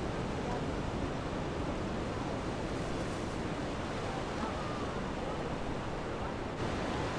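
Steady rushing noise with a low rumble, its level stepping up slightly about six and a half seconds in.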